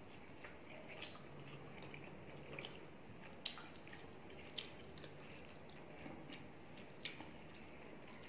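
Eating chicken curry and rice by hand: a few sharp, wet smacks from chewing and from fingers squishing rice into the gravy on the plate, over a faint steady hiss.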